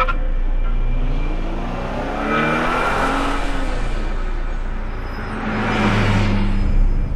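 Two cars passing by, one after the other: the first engine swells and drops in pitch as it goes past a couple of seconds in, and a second, louder pass peaks near the end.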